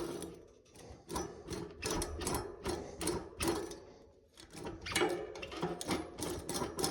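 A length of broken bicycle chain scraped back and forth between the sprockets of a bicycle cassette, giving rapid metallic clicks and rasps about three a second, in two runs with a short pause about four seconds in.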